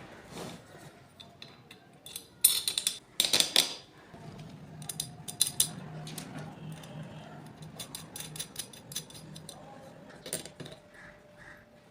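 Clicks, taps and scrapes of hard objects being handled, with two louder scraping bursts about two and a half and three and a half seconds in, then a faint low hum under the clicks.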